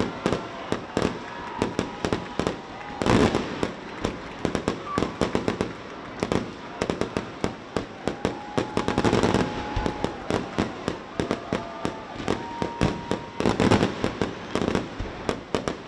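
Fireworks display: a rapid, continuous series of sharp bangs and crackles, swelling into louder dense volleys about three seconds in, around nine seconds and again near the end.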